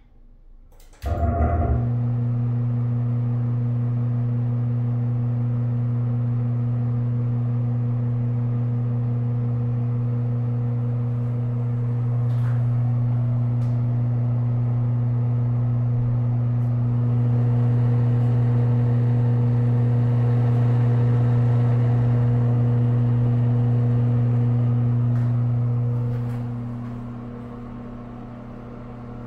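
Older Broan ceiling bathroom exhaust fan switched on about a second in. It starts with a brief rattle, then runs with a steady, strong low hum, which softens near the end.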